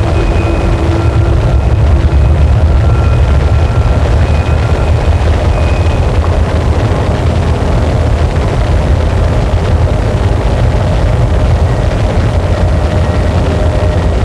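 Harsh noise music: a dense, loud, unchanging wall of distorted static, heaviest in the bass. Faint held tones sit inside it, fading out within the first few seconds, with another coming in near the end.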